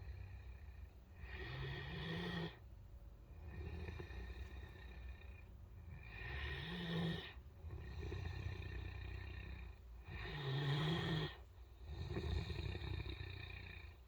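Great Dane snoring in a steady rhythm: a louder, pitched snore about every four seconds, with softer breathing between.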